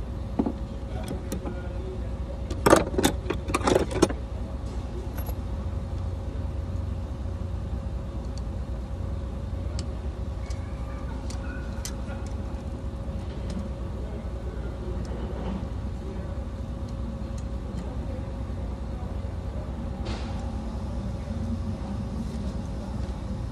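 A quick cluster of loud metallic clinks and rattles about three seconds in, then scattered light metal ticks of hand tools at a truck's front wheel hub. A steady low rumble runs underneath.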